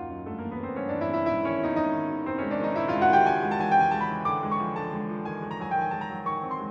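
Solo piano music, a flowing piece of many notes played in quick succession.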